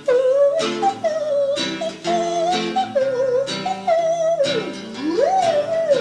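Music: acoustic guitar strumming under a wordless, wavering lead melody that slides down and back up near the end.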